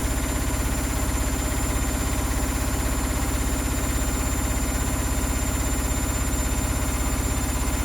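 Electrolux EW1057F washing machine drum spinning steadily in its interim spin. The running hum carries a regular pulse about twice a second, the sign of an unbalanced load.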